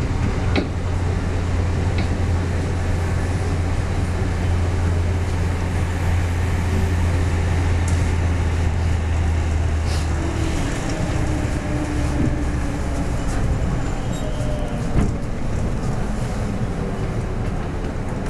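Cabin noise of a JR West 113 series electric train under way: a steady rumble of wheels on rail and running gear, with a strong deep hum that drops away about ten seconds in. A few sharp clicks of the wheels over rail joints are scattered through it.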